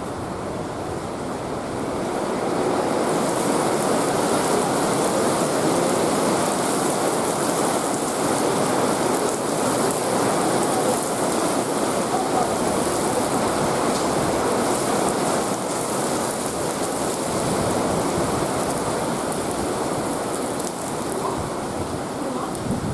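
Heavy cloudburst rain pouring down steadily as a dense hiss, getting louder about three seconds in.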